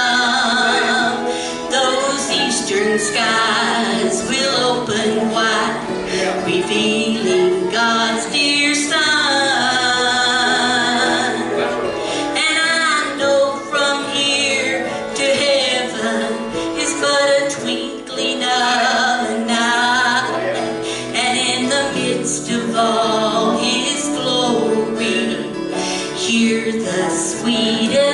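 Women singing a gospel song in harmony, accompanied by strummed acoustic guitars.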